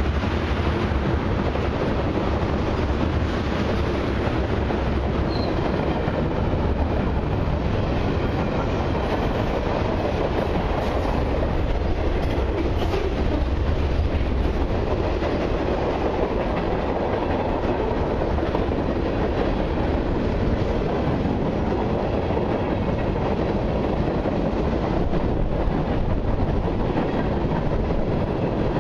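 Freight train rolling past close by: steady rumble of steel wheels on rail, with clicks as the wheels pass over rail joints, as tank cars, a covered hopper and autorack cars go by.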